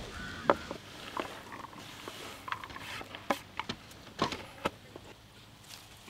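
Light, irregular knocks and clicks of a knife and hands preparing fresh coriander on a board, about a dozen taps spaced unevenly, fainter toward the end.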